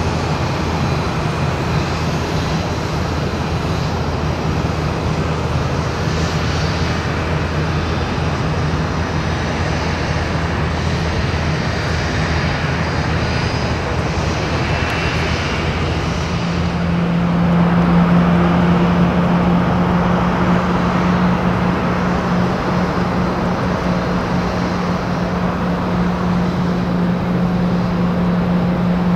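Jet engines of a taxiing Airbus A320 running at low taxi power: a steady hum with a low drone. About 17 seconds in, a louder steady low hum sets in and holds.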